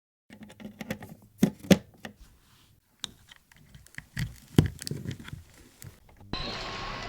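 Clicks and knocks of a Treton turntable radio being handled and switched, over a faint mains hum. About six seconds in a steady hiss with light crackles comes up: the stylus on the record's run-in groove just before the music starts.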